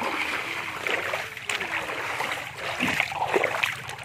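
River water running steadily, with scattered rustles and crackles from footsteps through brush along the bank.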